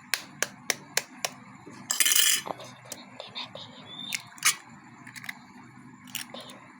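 An egg tapped against the rim of a bowl about five times in quick succession. About two seconds in comes a short crackle as the shell breaks open, followed by scattered light clicks.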